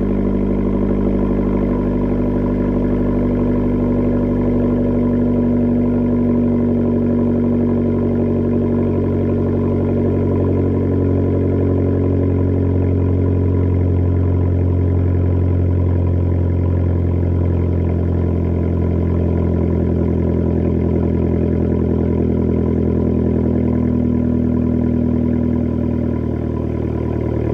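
Abarth car's engine and exhaust heard from inside the cabin, running with a steady drone whose pitch drifts only slightly, easing a little near the end.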